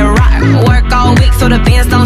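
Electronic dance-pop music with a steady kick drum about twice a second under a bass line and melody.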